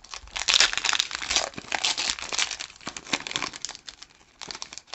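Foil Pokémon booster pack wrapper crinkling loudly as it is handled and torn open, dipping briefly about four seconds in before the crackling resumes.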